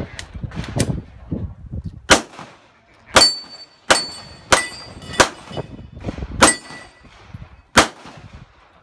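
Pistol fired seven times at an uneven pace, mostly about a second apart, beginning about two seconds in. After several of the shots a short, high metallic ring follows as the steel targets are hit.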